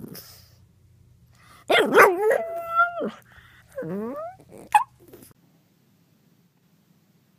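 Pug puppy making high, whiny yelping cries, then a squeaky yawn with a rising whine a little past halfway, and one short yip just after it.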